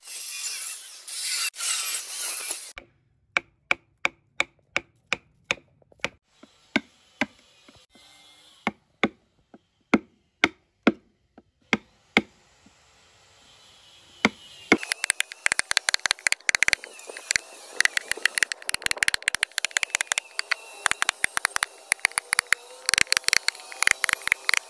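A handheld electric power tool running as it cuts into a wooden plank, stopping suddenly under three seconds in. Then a hand chisel cuts into the wood with sharp taps about once a second. From about halfway through comes a dense crackling and clicking as the chisel pares the wood and chips break away.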